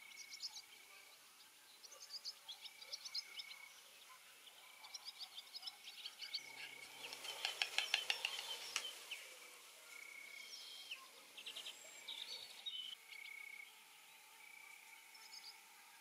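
Small songbirds chirping and calling in the background: quick series of short high notes and repeated brief whistles, with a denser, louder burst of rapid chatter about halfway through.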